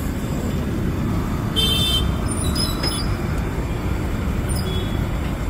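Steady street traffic rumble from passing vehicles, with a brief high-pitched ring about one and a half seconds in.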